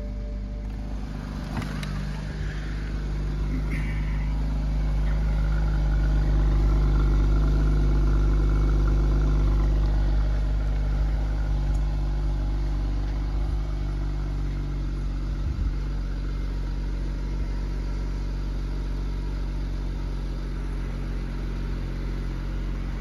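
2010 BMW 535i xDrive wagon's twin-turbo 3.0-litre inline-six idling steadily shortly after a cold start, at about 1,000 rpm. The sound grows louder for several seconds partway through, then settles.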